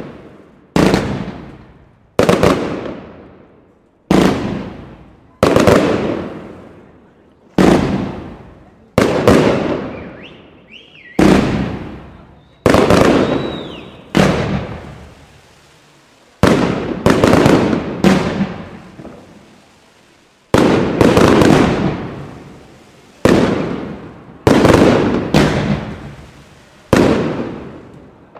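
Aerial firework bursts from consumer firework batteries going off in quick succession: about twenty sharp bangs, roughly one every second or so and sometimes two close together, each fading out over about a second.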